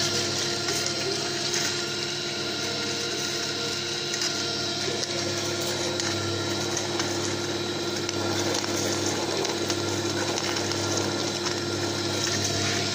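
TabyPressen Type 55 screw oil press running as it presses mongongo nuts: its electric motor drives the pressing screw with a steady hum made of several even tones, and a few faint clicks.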